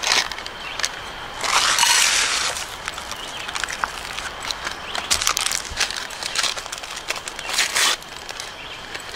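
Close-up crinkling and rustling of packaging and camp gear being handled while oatmeal is got ready, with scattered clicks. Two louder bursts of rustling come about two seconds in and near the end.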